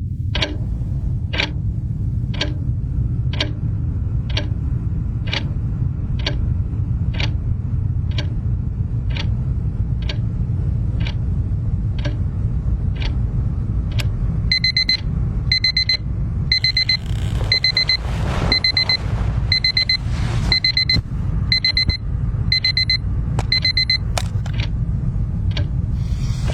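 A clock ticking steadily about once a second, then an alarm clock beeping: repeated high electronic beeps in short groups, starting about halfway through and stopping shortly before the end. A steady low rumble runs underneath.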